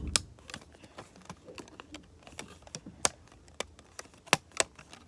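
Irregular small clicks and taps from a worn, ripped homemade fidget toy being handled, with a couple of sharper clicks near the middle and toward the end.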